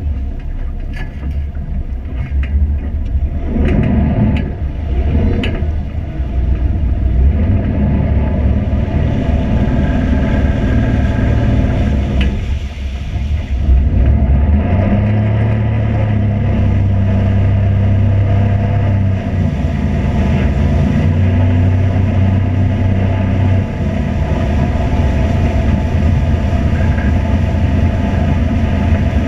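A vehicle engine running, a steady low rumble whose pitch shifts up and down several times.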